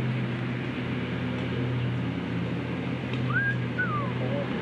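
A steady low hum, with a single whistled call about three seconds in that rises, holds briefly, then slides down in pitch.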